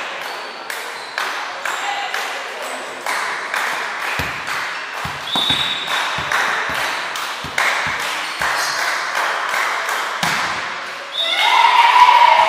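Indoor volleyball play in an echoing sports hall: a steady beat of sharp, echoing knocks or claps, about two or three a second, with a few dull thuds from the ball and feet on the wooden floor. Near the end, loud voices shout as the play builds.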